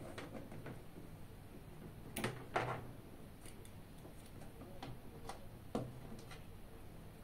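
Small clicks and light taps from hands handling an Orange Pi 3 LTS single-board computer and the small memory cards beside it, with two sharper clicks a little over two seconds in and another near six seconds.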